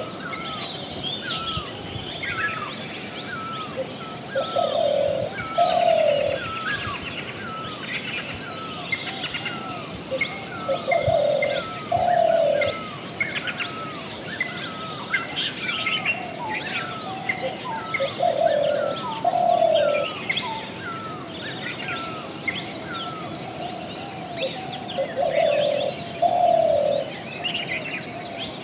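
Several wild birds calling in forest. A low two-note cooing call comes in pairs roughly every six or seven seconds, over a steady series of short chirps about twice a second and higher twittering.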